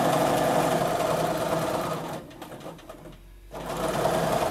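Bernina domestic sewing machine stitching steadily while free-motion quilting. It stops about two seconds in, then starts stitching again about a second and a half later.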